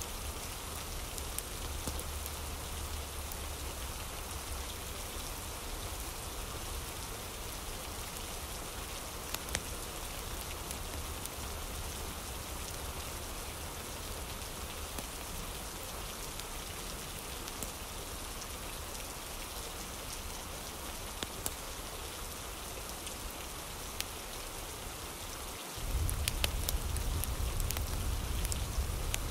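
Steady rain ambience, an even hiss of falling rain with a few faint scattered drop ticks. About 26 s in it steps up louder with a deeper low rumble.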